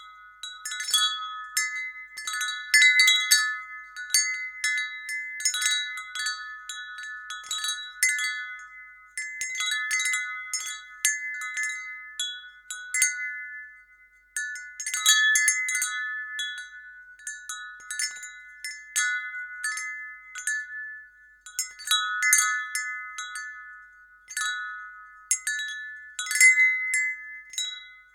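Wind chime ringing: metal tubes struck irregularly in bursts, several clear high tones ringing on and overlapping, with a brief lull about halfway through.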